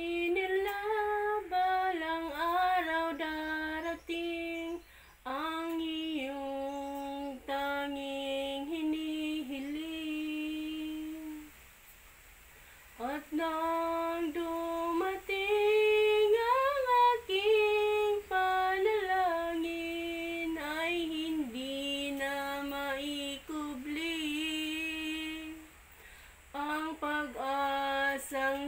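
A woman singing a slow song solo, with no instrumental backing. She holds long notes and pauses briefly between phrases, twice.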